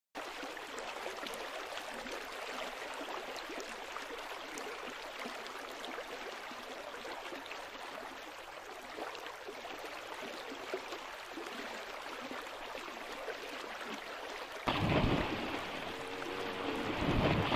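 Steady hiss of running river water, then about fifteen seconds in, loud heavy splashing as a crocodile lunges at a deer in the shallows, surging again near the end.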